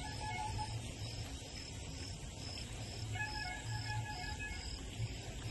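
Night insects, likely a cricket, chirping in a steady high-pitched pulse about two and a half times a second. A lower, patterned call comes in briefly at the start and again around three seconds in, over a faint low hum.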